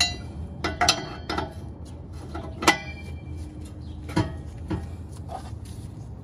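Metal parts and hand tools clinking and tapping, about eight sharp clinks with a short ring, the loudest a little under three seconds in, over a low steady hum.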